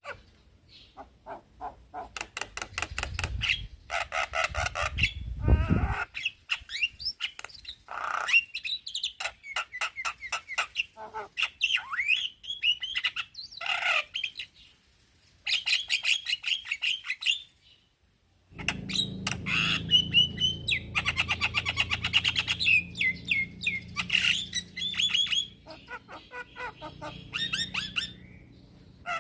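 Male Javan myna singing: a varied string of harsh rattling chatter, squawks and gliding whistled chirps, broken by short pauses between phrases.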